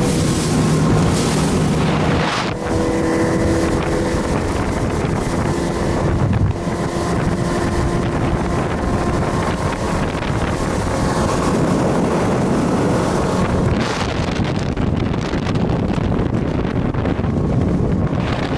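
Small aluminium fishing boat running at speed under motor, a steady engine drone under heavy wind noise on the microphone.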